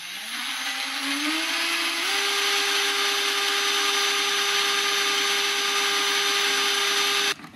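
Cordless drill with a small bit drilling a pilot hole through the shade's rail. Its whine rises in pitch over the first two seconds, holds steady, then stops suddenly near the end.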